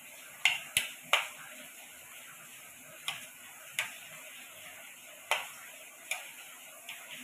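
Metal spoon tapping and clicking against a plate while mixing a garlic, butter and cheese spread: about eight sharp clicks at irregular intervals, the three loudest close together in the first second or so.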